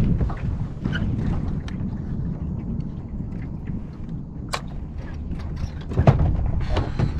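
Steady low rumble of wind and water noise around a small fishing boat, with a few sharp knocks, one about four and a half seconds in and more near the end.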